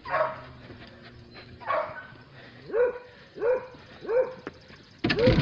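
Hounds barking in a pen: about six short barks roughly a second apart, the loudest near the end.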